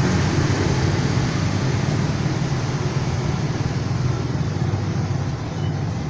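Steady low rumble with a hiss over it, a constant background noise like nearby road traffic. No birdsong is heard.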